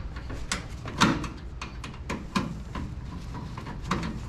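Scattered metal knocks and clicks as the sheet-steel casing and brace of a microwave oven are worked with a screwdriver, the loudest knock about a second in.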